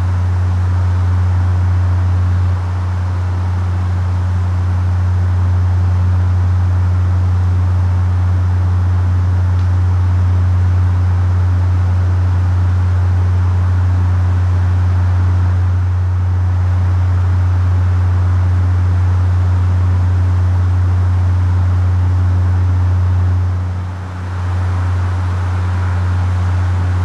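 Unexplained steady low-frequency hum, a deep droning tone with a fainter overtone an octave above, over a soft hiss. It dips briefly once, about three seconds before the end.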